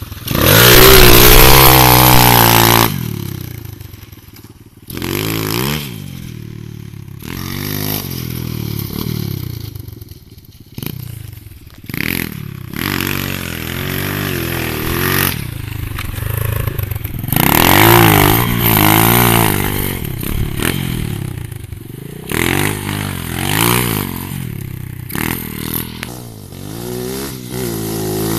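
Pit bike engine revving up and down again and again, its pitch rising and falling with each twist of the throttle. It is loudest as the bike passes close about a second in, then fades and comes back as the bike rides away and returns.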